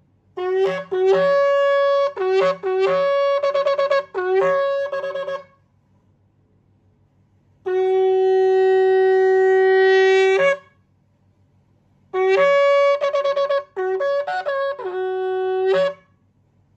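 Large natural-finished Yemenite kudu-horn shofar being blown: a run of short broken blasts jumping between two notes, then after a pause one long steady blast on the lower note, then another run of broken blasts.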